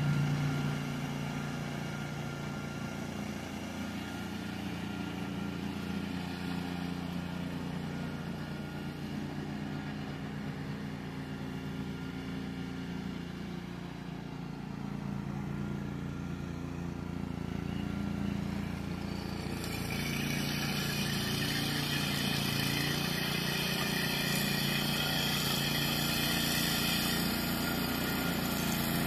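Small gasoline engines of walk-behind brush mowers running steadily while they cut through tall weeds. About two-thirds of the way in, one mower gets louder as it comes closer.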